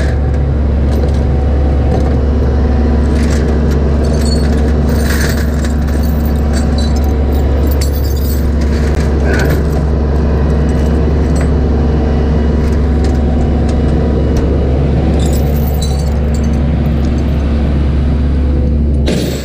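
Tow truck's engine running steadily with a constant low drone and a couple of steady hum tones, with light metallic rattles and jingles. The sound changes abruptly to something quieter near the end.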